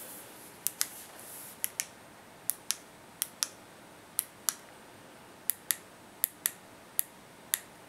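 Buttons on the kit's small wireless remote clicking as they are pressed, about eight pairs of sharp clicks spaced roughly a second apart.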